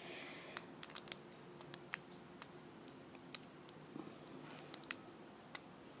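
Small, sharp metallic clicks at irregular intervals, about fifteen of them: a lock pick and tension tool working the pin stack of a 5-pin brass Squire Leopard LP10 padlock.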